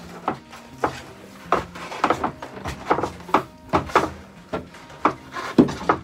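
A boat water heater, a metal box, being hauled up through a wooden companionway: a run of about a dozen irregular knocks and bumps against the woodwork, some with short scrapes.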